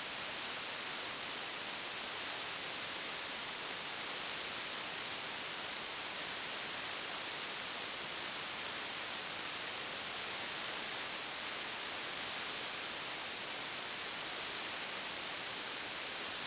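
Steady, unchanging electronic hiss, like static, with no other sound in it.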